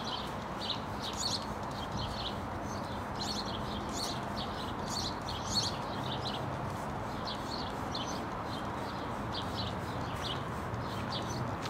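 Small birds chirping in short, high, irregular calls over a steady outdoor background hum.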